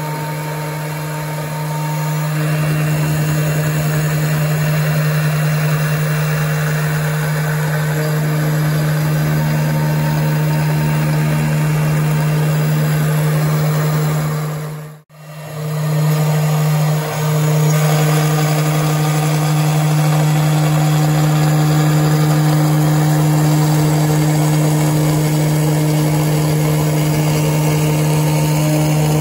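CNC router spindle running steadily with a strong hum while its fine engraving bit cuts into a plexiglass sheet. The sound cuts out briefly about halfway, then resumes.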